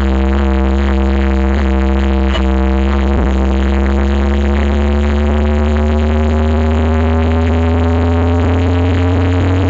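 Electronic dance music played very loud through a large street sound system, with a heavy sustained bass and a held synth tone that slowly rises in pitch.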